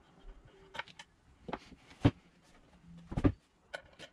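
Hydrofoil parts and tools being handled on a tabletop during disassembly: a few separate sharp clicks and knocks, the loudest about two seconds in and a quick cluster a second later.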